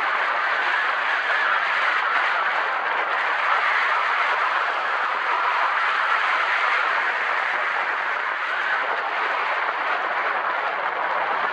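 Steady rush of wind over the camera microphone from the airflow of a paraglider in flight, an even hiss without breaks.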